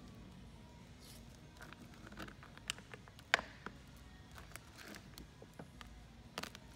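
Clear CruzArmor protection film being stretched and peeled off a motorcycle saddlebag lid by hand, the plastic crinkling with scattered faint crackles and ticks as it lifts from its adhesive. The sharpest tick comes a little past three seconds in.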